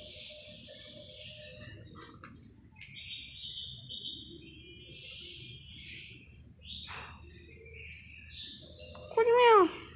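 A dog gives one short, loud whining cry near the end, its pitch rising then falling, over faint bird chirps.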